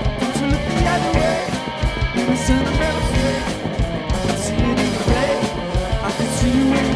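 Live punk rock band playing loudly: a drum kit with dense cymbal crashes under electric guitar. Right at the end the drums stop and a guitar chord rings on.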